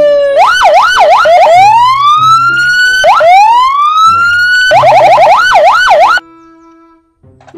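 Police car electronic siren cycling through its tones: a short falling note, then a fast yelp of quick rising-and-falling sweeps, two slow rising wails, and another fast yelp, cutting off abruptly about six seconds in.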